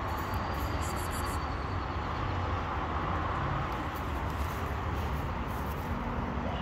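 Steady low rumble of street traffic in the background, with no distinct separate sounds standing out.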